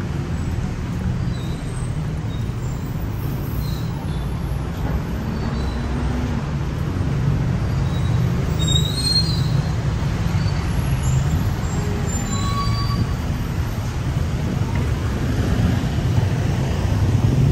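Steady low rumble of a running vehicle, with a few short, faint high squeaks scattered through it.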